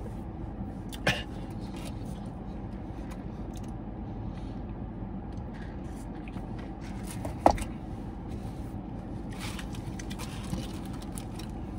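Steady low running hum of a parked car, heard from inside the cabin. Two short knocks come about a second in and past the middle, and a paper food wrapper rustles near the end.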